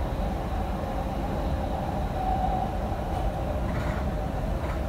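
Doha Metro train running at speed, heard from inside the front car: a steady low rumble of wheels and running gear under a constant hum, which swells slightly about halfway through.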